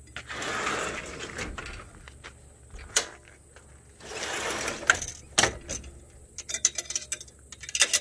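Handling of a metal frame and its wire fastening: two stretches of rustling and scraping, a few sharp clicks, then a quick irregular run of metallic clicks and rattles near the end.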